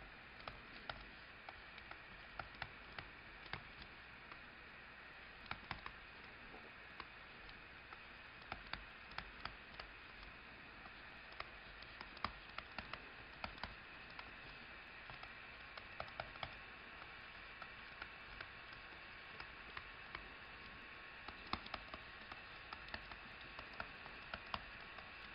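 Faint, irregular taps and clicks of a stylus writing on a tablet screen, over a steady background hiss.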